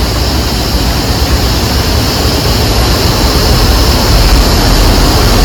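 Car on the move at speed: loud, steady rushing of wind and road noise over a low engine rumble.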